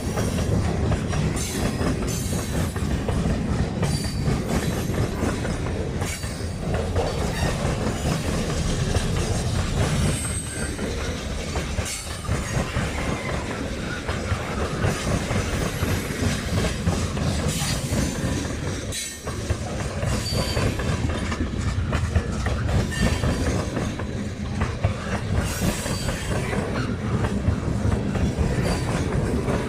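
Cars of a manifest freight train rolling past, steel wheels clacking over rail joints, with a few brief high wheel squeals.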